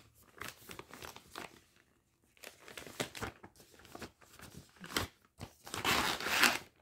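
Plastic packaging crinkling and rustling as a cross-stitch kit is pulled out of its mailer and handled in its clear plastic sleeve. The rustles come in short, irregular bursts, with a brief lull about two seconds in and the loudest crinkling near the end.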